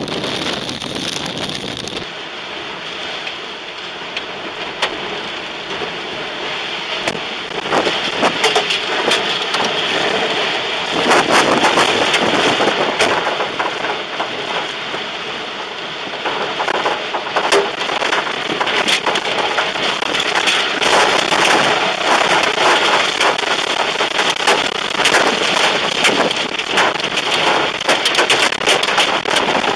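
Heavy rain and wind lashing a car in a tornadic thunderstorm, heard from inside the car, with a dense patter of sharp hits on the windows and body. It grows louder about a third of the way in.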